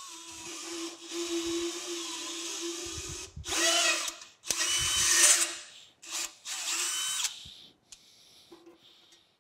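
Cordless drill power-tapping 1/4-28 threads into a metal tray. It runs steadily for about three seconds, then in several shorter, louder spurts, and stops a little over seven seconds in.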